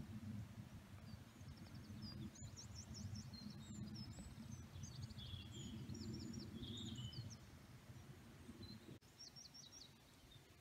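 Faint songbird song: quick, repeated high trilled phrases, in two spells, over a low steady rumble that drops away near the end.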